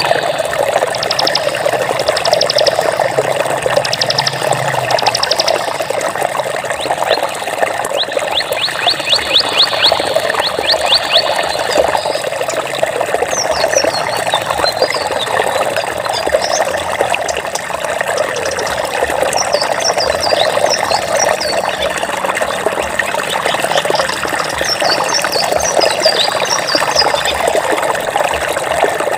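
Steady rushing of flowing water, as from a stream. Runs of rapid high trills sound through the first third, and short high chirps come and go over the rest.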